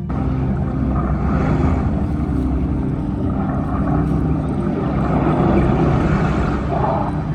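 Film soundtrack on a large venue sound system: a dense, steady rumbling wash of sound effects that cuts in abruptly, replacing soft tonal music.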